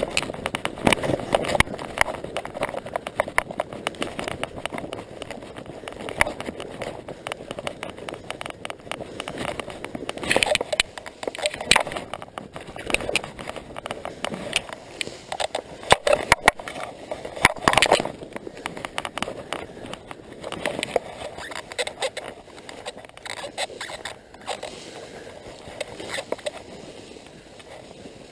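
Tall grass rustling and crackling against the camera and microphone as the angler moves and crouches in it, an irregular run of scratchy clicks with louder bursts now and then.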